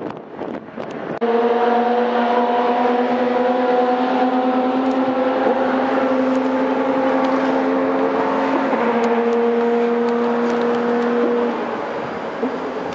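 An engine drone holding a steady, fairly high note. It comes in suddenly about a second in, drops slightly in pitch near nine seconds, and stops shortly before the end.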